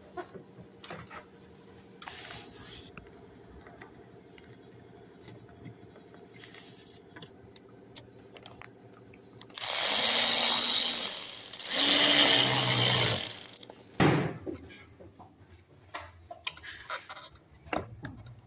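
Cordless power tool on a socket extension running in two short bursts, each about a second and a half, tightening the hose clamp of the air intake duct at the throttle body. Faint clicks and a knock of parts being handled come before and after.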